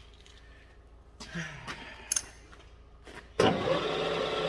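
A few light metal clicks and knocks from handling at a manual milling machine, then about three and a half seconds in the machine's spindle motor is switched on and runs steadily with a loud, even hum.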